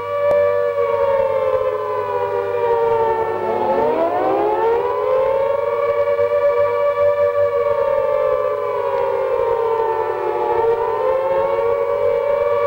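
Civil defence warning siren wailing on two close pitches at once. About three and a half seconds in its pitch sinks low and climbs back up, and near the end it dips again more gently before rising.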